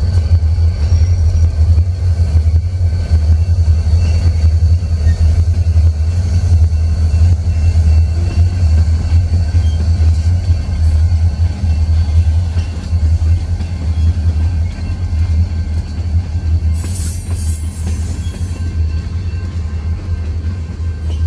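Loaded coal train's cars rolling past on the rails: a loud, steady low rumble. A brief high hiss comes about three-quarters of the way through.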